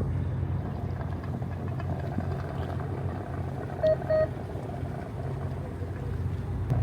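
Fishing boat's engine running with a steady low hum. About four seconds in come two short electronic beeps close together.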